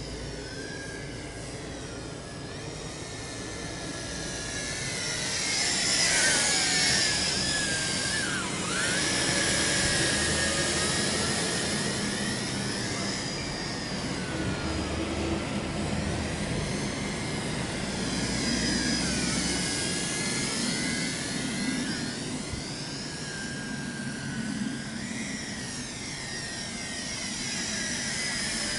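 Tarantula X6 drone's propellers and motors whining in flight, the pitch gliding up and down as the throttle changes, loudest about six to ten seconds in.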